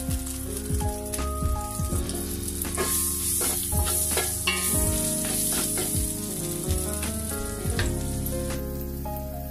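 Butter melting and sizzling in a hot nonstick frying pan in leftover shrimp drippings, with a steady crackling hiss and a wooden spatula stirring and scraping. Soft background music plays underneath.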